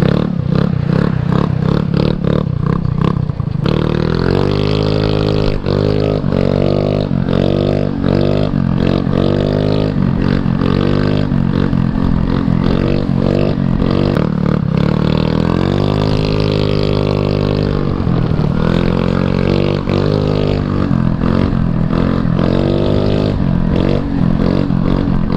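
Four-stroke single-cylinder 150cc GY6 scooter engine revving up and dropping back again and again under hard throttle as the rider pulls wheelies.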